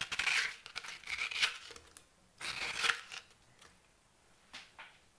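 A spoon scooping lemon concentrate, scraping three times in short bursts, one per spoonful, with a few light clicks near the end.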